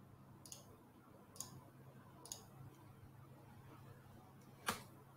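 A few faint computer mouse clicks over quiet room hum: three light clicks in the first two and a half seconds and a louder one near the end.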